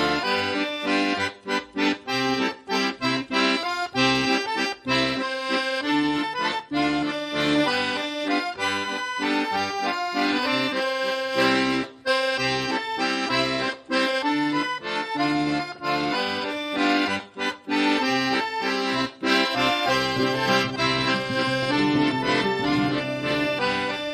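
Instrumental background music: a tune of held, changing notes.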